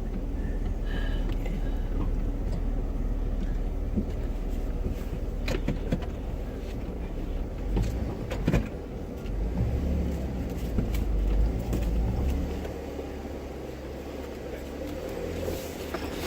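Off-road vehicle's engine running slowly as it crawls over rock, with a couple of sharp knocks about five and eight seconds in. The engine gets louder from about nine to twelve seconds in, then drops back.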